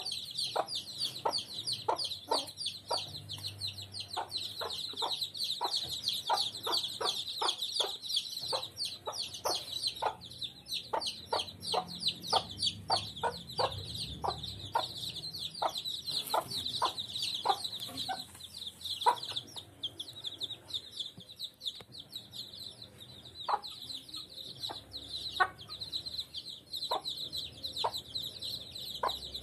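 Kampung chicks peeping nonstop in rapid high chirps while the mother hen clucks to them in short low clucks, about two a second, growing sparser in the second half.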